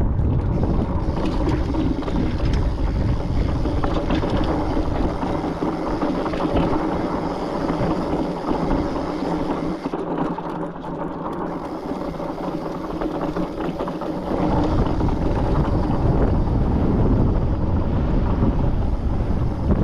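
Wind buffeting the microphone over the steady rolling noise of bike tyres on sandstone slickrock. The low buffeting eases about five seconds in and comes back strongly about fourteen seconds in.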